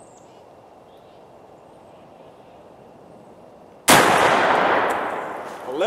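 A single shotgun shot about four seconds in, firing a tungsten T-buck buckshot load. The sharp report echoes and fades away over about two seconds, and faint outdoor background comes before it.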